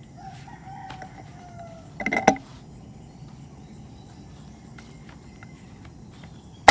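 Roosters crowing: a long call falling in pitch early on, then a shorter, louder crow about two seconds in. A single sharp air rifle shot sounds right at the end.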